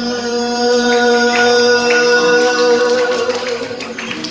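A man singing an enka song into a microphone over a karaoke backing track, holding one long note that ends a little past three seconds in, after which the backing track's percussion comes to the fore.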